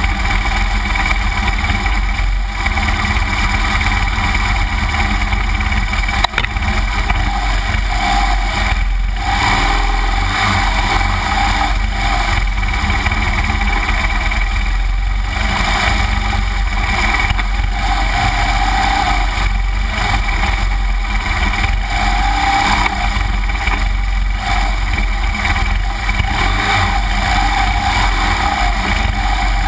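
The flat-twin boxer engine of a 2009 BMW R1200GS Adventure running steadily under load as the bike climbs a rough dirt trail, picked up by a camera mounted on the bike, with a heavy low rumble throughout. A single sharp knock comes about six seconds in.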